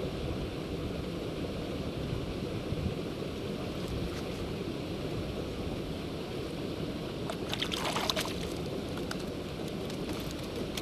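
Wind buffeting the microphone as a steady low rumble. About seven and a half seconds in comes a brief cluster of crackles and clicks on the snowy ice as a trout is hauled out through the ice hole.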